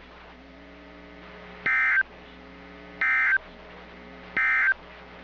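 Three short, identical bursts of warbling data tone from a NOAA Weather Radio broadcast, each about a third of a second long and a little over a second apart, over a faint steady hum. They are the SAME end-of-message signal that closes a severe thunderstorm warning.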